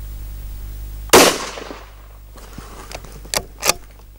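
A single shot from a scoped bolt-action rifle in 17 WSM about a second in, a sharp crack with a short echo tailing off. Near the end, two sharp metallic clacks as the bolt is worked to eject the spent case.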